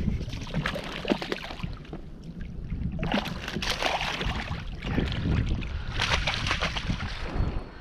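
Irregular knocks, rustling and water sloshing aboard a fishing kayak as a freshly caught speckled trout is handled, over a steady low rumble.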